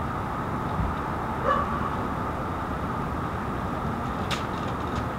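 Parked fire engine's engine idling with a steady hum, with a brief short tone about one and a half seconds in and a sharp click a little after four seconds.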